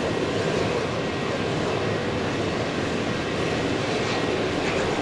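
Kawasaki T-4 jet trainer's engines running with a steady rushing noise.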